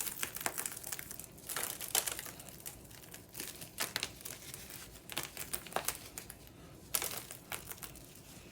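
Irregular crisp crinkling and crackling: crunchy caramel popcorn being handled while crushed peppermint is sprinkled over it.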